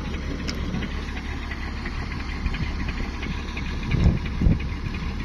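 Heavily loaded goods truck's diesel engine idling with a steady low rumble, with two brief louder low bumps about four seconds in.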